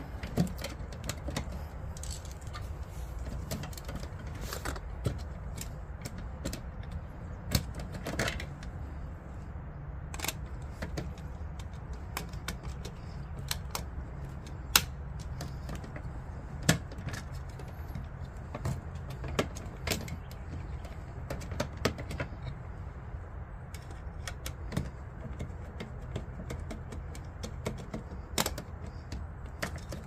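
Irregular small clicks and taps of a screwdriver, wires and a plastic lamp holder being handled as the black and white wires are fastened under the fixture's terminal screws, over a steady low background rumble.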